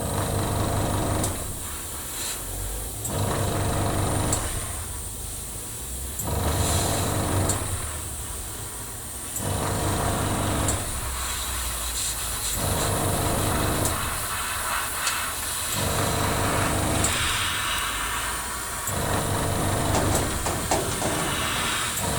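Small airbrush compressor humming steadily while an airbrush sprays paint in short passes, its air hiss starting and stopping about every three seconds.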